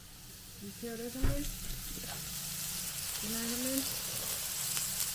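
Meat sizzling on a hot grill, a hiss that builds up about a second in and then holds steady. A sharp knock comes just after it starts, and two short rising vocal sounds come over the sizzle.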